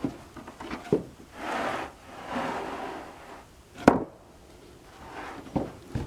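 Sawn wooden boards being handled: boards sliding and scraping against each other, with three sharp wooden knocks as they are set down, the loudest about four seconds in.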